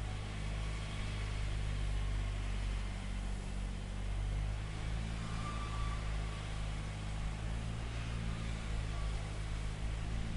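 Steady low hum of an engine running at constant speed, over a faint even hiss.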